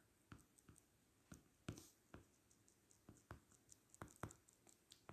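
Near silence with about a dozen faint, irregular light taps of a stylus on a tablet screen during handwriting.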